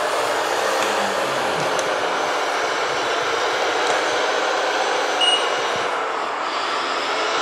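Steady whirring of a radio-controlled Case 90XT skid steer loader's electric drive and hydraulic pump as it works its bucket, with a short high beep about five seconds in.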